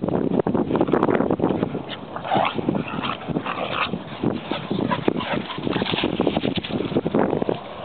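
Two small dogs playing and chasing each other, giving short vocal sounds now and then over a stream of short knocks and rustles.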